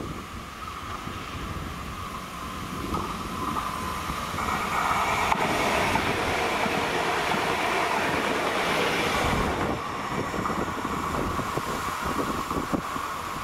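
Alstom Coradia Continental electric multiple unit (DB class 1440) passing close by on the rails. Its wheel and running noise swells to a loud rush that lasts several seconds. Near the middle the sound cuts to a quieter, more distant approach with sharp clicks of wheels over rail joints.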